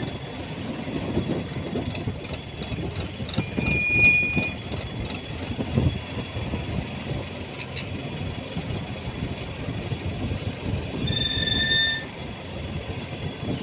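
A fishing boat's engine running with a low, uneven rumble and clatter, along with water splashing at the hull. Two brief high-pitched squeals sound, about four seconds in and again near the end.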